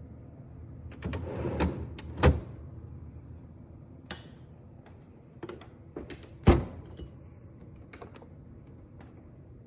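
Knocks and thumps of a refrigerator and the food containers in it being handled, with a door or drawer sliding. The two loudest thumps come about two and six and a half seconds in.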